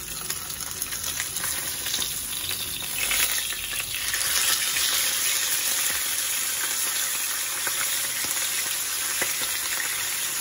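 Whole blackhead sea bream shallow-frying in hot oil, a steady sizzle. The sizzle grows louder about three to four seconds in, as the fish is turned onto its uncooked side.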